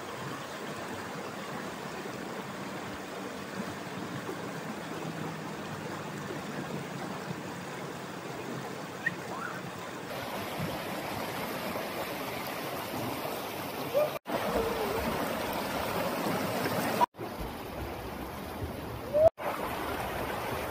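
Muddy flash-flood water rushing down a rocky wadi channel, a steady rush of water. The sound changes character a few times at edit cuts, with brief clicks and dropouts about two-thirds of the way in and near the end.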